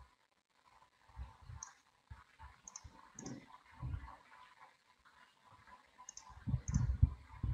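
Several scattered computer mouse clicks, with a few faint dull low thumps among them.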